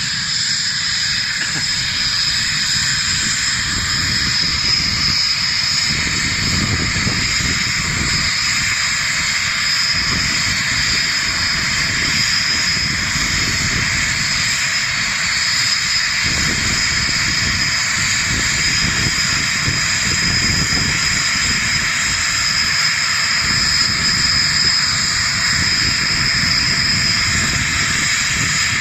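A machine running steadily: a continuous hiss with an uneven low rumble beneath it, without a break.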